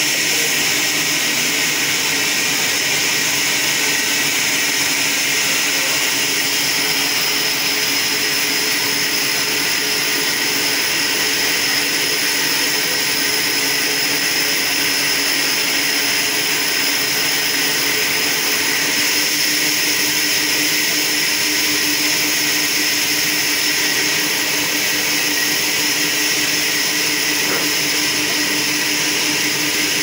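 Horizontal band sawmill running, its blade cutting timber on the trolley carriage: a steady, loud hiss with a constant hum beneath that grows a little stronger about two-thirds of the way through.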